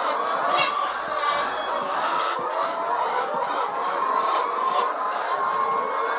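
A large flock of hens clucking and calling together in a continuous, overlapping chatter.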